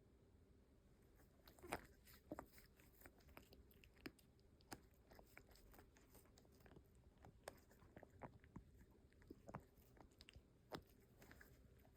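Faint, irregular small clicks and crunches, many of them scattered through the quiet, the loudest a little under two seconds in and again near the end.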